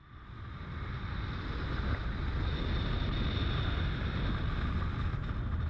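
Wind on the microphone and rushing water from a boat under way, swelling over the first couple of seconds and then steady.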